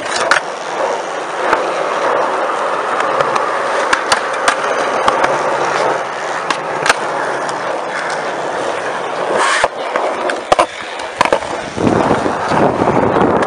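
Skateboard wheels rolling on a concrete skatepark surface, a steady grinding hiss, broken by many sharp clacks as the board is popped, landed and knocked against the ground and ledges, the loudest ones a little past the middle.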